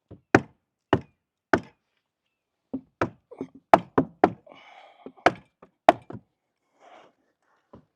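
Hammer blows knocking on old wooden deck boards while nails are worked out: three evenly spaced strikes, then a quicker, uneven run of blows.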